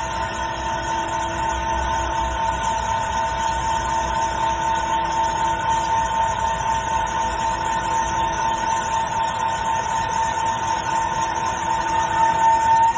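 CNC lathe machining a metal part under coolant spray: a steady, high whine with fainter overtones, starting to rise in pitch right at the end.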